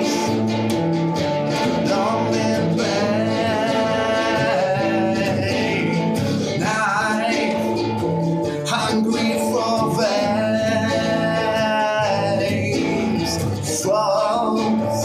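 A man singing while accompanying himself on guitar.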